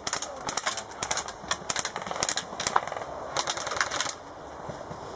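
Airsoft rifles firing in short rapid bursts of sharp clicks, easing off about four seconds in.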